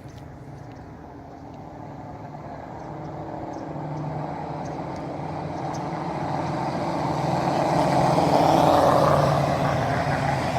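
Road traffic: a motor vehicle's engine and tyre noise grow steadily louder as it approaches, loudest about eight to nine seconds in, then easing slightly.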